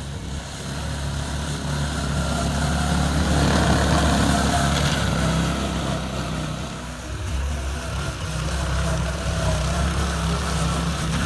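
Arctic Cat 120 youth snowmobile's small engine running steadily as the sled rides over snow. It grows loudest about four seconds in, dips, then comes up again.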